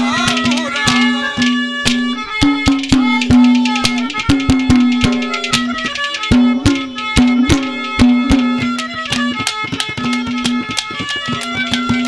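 Instrumental interlude of live Haryanvi ragni accompaniment: a melody over a steady held drone note, driven by quick hand-drum strokes several times a second.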